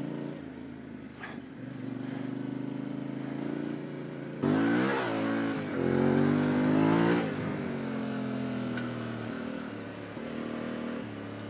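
Yamaha Ténéré 700's parallel-twin engine running under way at low, steady revs. It is opened up twice in the middle, pitch and loudness rising about four and a half and six seconds in, then eases back off.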